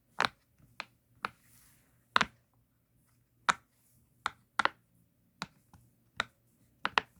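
Silicone Pop-It fidget toy bubbles being pressed, each one a sharp pop, about a dozen at an uneven pace, some in quick pairs.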